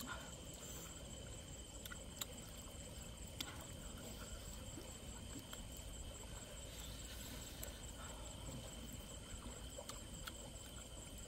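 Night insects trilling steadily and faintly, with a few sharp wet clicks and smacks from eating by hand.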